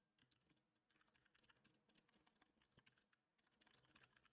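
Faint, rapid typing on a computer keyboard: irregular key clicks, a little denser near the end.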